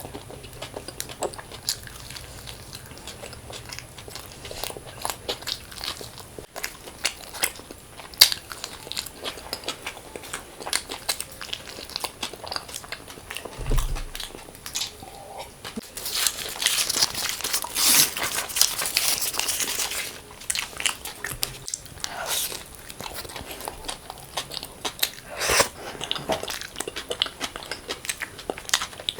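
Close-miked eating: a person biting and chewing food with wet clicks and crunches, sounds typical of an ASMR mukbang. A denser, noisier stretch of about four seconds comes just past the middle.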